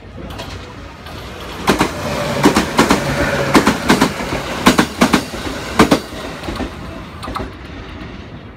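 A passenger train passing close by on the adjacent track: a rushing rumble that swells about two seconds in, with wheels clattering over rail joints in quick pairs. It fades away over the last couple of seconds.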